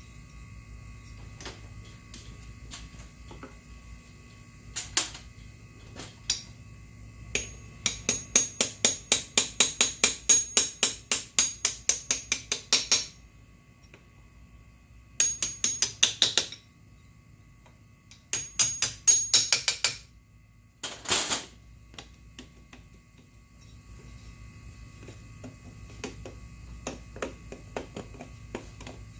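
Hammering: runs of sharp blows, about four a second, with a long run of about five seconds and then shorter runs, and lighter taps in between, while a scooter tire is worked off its wheel.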